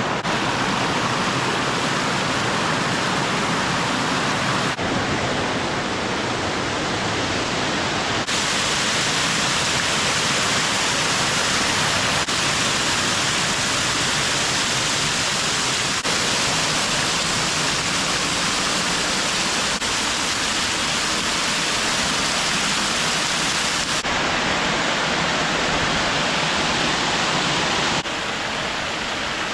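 Waterfall with a steady rush of falling water. Its tone changes abruptly a few times.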